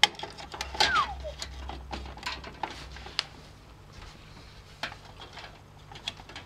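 Irregular plastic and metal clicks, knocks and scrapes as an internal card reader is slid into the front drive bay of a PC case. About a second in there is a short, falling squeak.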